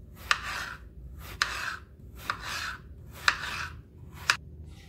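Kitchen knife chopping peeled bottle gourd on a wooden chopping board. There are five strokes about a second apart, each a sharp knock of the blade on the board with a short rasping slice through the gourd's flesh.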